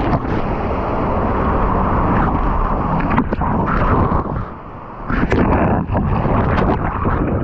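Loud, gusting wind buffeting the microphone, with a short lull about four and a half seconds in and a few sharp knocks.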